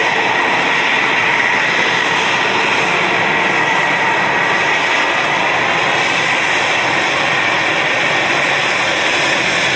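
F-22 Raptor's twin Pratt & Whitney F119 turbofans running at taxi power as the jet rolls out of a hangar: a loud, steady jet rush with a high whine that eases slightly lower toward the end.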